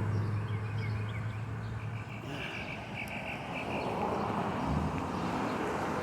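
Outdoor ambience: a low engine hum fades away over the first two seconds, then a small bird chirps a quick run of short high notes, over a steady background hiss.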